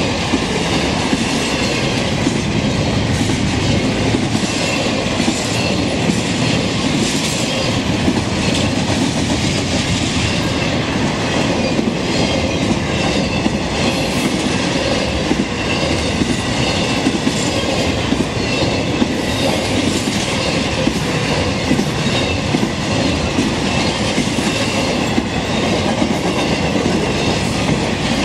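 Intermodal freight cars loaded with highway trailers rolling steadily past at close range: a continuous rumble of wheels on rail with the clickety-clack of wheels striking rail joints.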